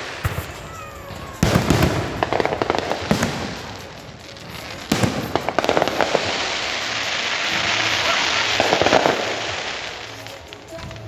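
Aerial fireworks going off overhead: sharp bangs about a second and a half in and again around five seconds, each followed by a long run of dense crackling.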